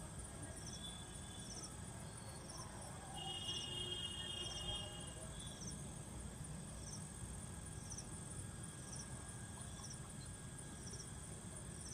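Crickets chirping, a regular chirp of three or four quick pulses repeating about every three-quarters of a second, with a second, steadier trill joining for about two seconds near the middle. A faint low rumble runs underneath.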